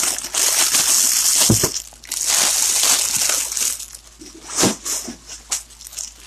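Clear plastic bag crinkling and rustling as it is handled, loudest in the first few seconds and sparser after. Two dull thumps come through, about a second and a half in and again later.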